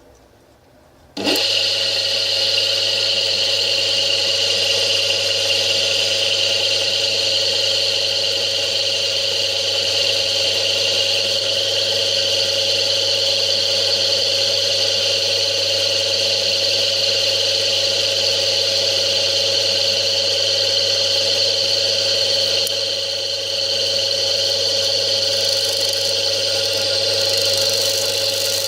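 Electric motor taken from a washing machine, switched on about a second in and then running steadily with a high, even whine over a low hum.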